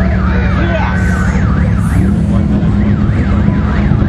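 A yelping siren rising and falling about twice a second, over the dense, steady rumble of demolition derby car engines.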